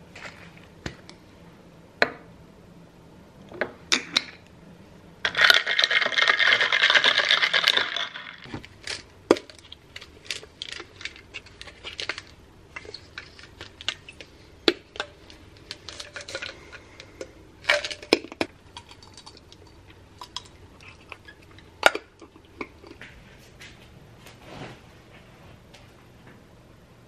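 Scattered clinks, taps and handling knocks of small household objects, with a loud rushing noise about five seconds in that lasts under three seconds.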